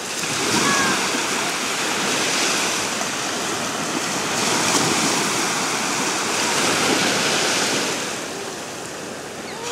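Small waves breaking and washing up onto a sandy beach, a steady surf hiss that swells and eases, quieter near the end.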